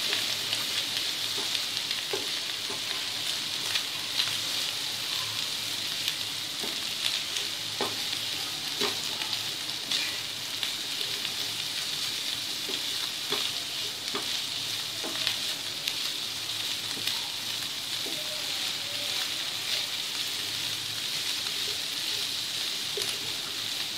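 Ground beef keema and onion-tomato masala sizzling steadily in oil in a frying pan while being stirred with a wooden spoon, with scattered knocks and scrapes of the spoon against the pan.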